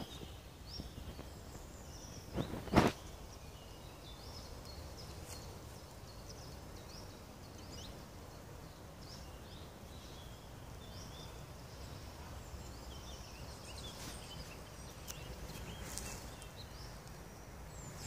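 Several songbirds singing and chirping, short high notes and quick pitch slides scattered throughout over a steady low rumble. A single sharp knock about three seconds in is the loudest sound.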